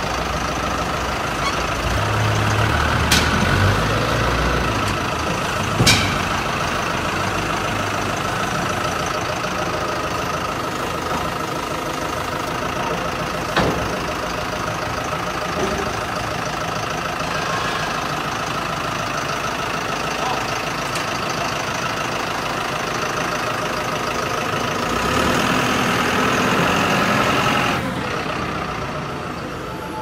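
Forklift engine running steadily as it pushes a machine frame into a shipping container, with a few sharp metal knocks in the first half and the engine louder for a few seconds near the end.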